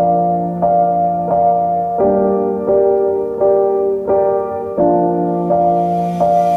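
Background piano music: slow, sustained chords struck about every two-thirds of a second, with a hiss swelling in near the end.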